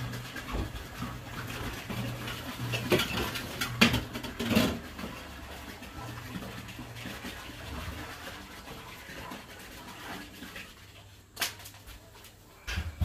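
Water pouring from a large plastic water jug in a steady splashing stream that fades out about ten seconds in, followed by a few sharp knocks.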